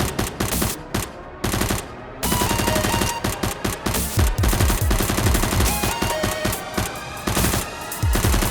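Rapid bursts of machine-gun-like gunfire, with a brief lull about one to two seconds in, over background music.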